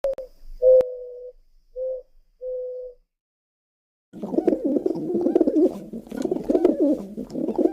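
A dove cooing: a few short, steady, low coos in the first three seconds, with a sharp click about a second in. After a pause of about a second comes a longer, rougher, warbling run of cooing.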